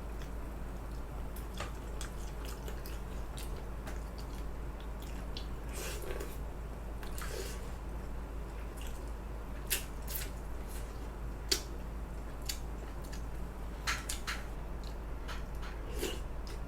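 A person eating samgyetang: soft wet chewing and mouth sounds with scattered light clicks of utensils, over a steady low hum.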